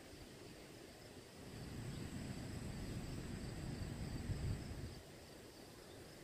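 Insects buzzing steadily in a high, even drone. A low rumble swells about two seconds in and drops away near five seconds.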